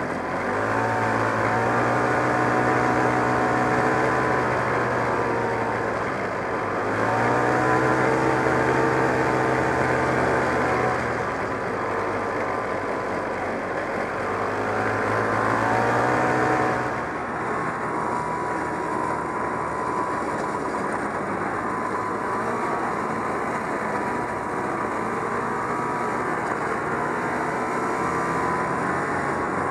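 A 1969 Polaris Mustang snowmobile's JLO 372 two-stroke engine running under way, revving up and easing off in several pulls of a few seconds each. About 17 seconds in the note changes abruptly to steadier running with a higher whine.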